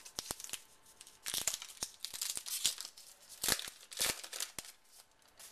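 Wrapper of a 2011 Topps Lineage trading-card pack being crinkled and torn open by hand: irregular crackling and crinkling, broken by several sharp clicks.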